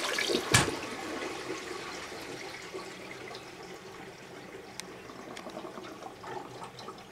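Toilet flush dying away: the loud rush ends with a knock about half a second in, then water keeps running and churning in the bowl, slowly fading. The bowl is choked with a whole roll of toilet paper, which the owner takes to mean the toilet has reached its limit and clogged.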